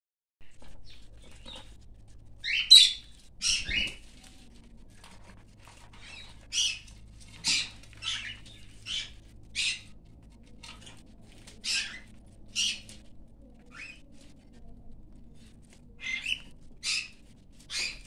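Cockatiels calling with short, high chirps at irregular intervals of about a second, the loudest few coming about three seconds in, over a faint steady low hum.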